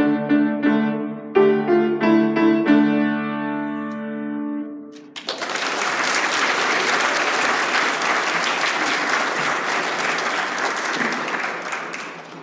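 A grand piano is played solo to the end of a piece, with a final held chord dying away about five seconds in. An audience then applauds, fading near the end.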